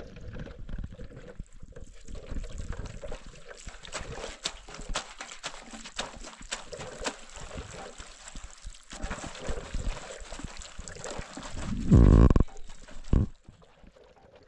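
Hands splashing and scrubbing in a metal basin of water, with small clinks and knocks while washing up. About twelve seconds in, a cow moos loudly once, with a shorter sound right after.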